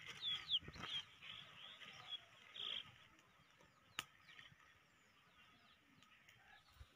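Birds chirping faintly, a run of quick falling peeps in the first second and scattered ones after, with one sharp click about four seconds in.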